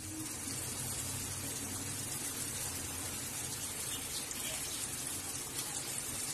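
Steady sizzling of spice paste cooking in coconut milk in a steel wok.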